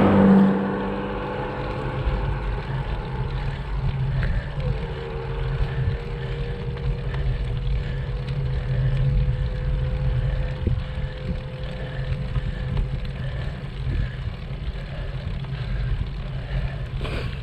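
Wind rumbling over a camera microphone while cycling on a road, with a motor vehicle passing at the very start. A steady hum then holds one pitch for several seconds in the first two-thirds.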